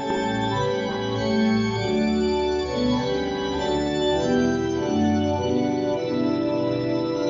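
Church organ playing a hymn tune in full sustained chords, the harmony moving about every half second over a bass line.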